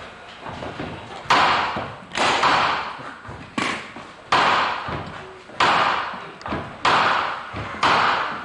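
A series of seven loud bursts of noise, each starting suddenly and dying away within about a second, at uneven intervals.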